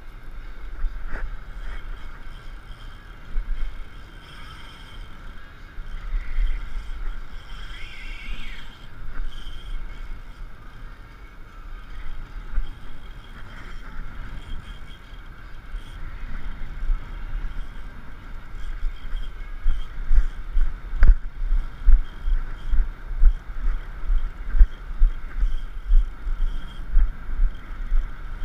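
Wind buffeting the microphone in gusts, with a low rumble that grows heavier and more pulsing in the second half.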